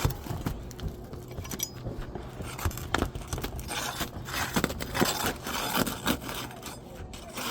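Steel flat bar scraping and prying under old, brittle laminated asphalt roof shingles, with irregular sharp cracks and snaps as the shingle gives way.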